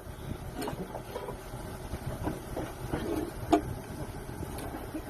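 A diesel engine idling steadily, with a few sharp knocks over it. The loudest knock comes about three and a half seconds in.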